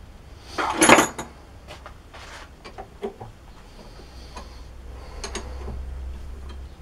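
Metal tools and parts clattering and clinking as they are handled, loudest about a second in, with a few lighter clicks after. About four seconds in, a motor starts a steady low hum that keeps running.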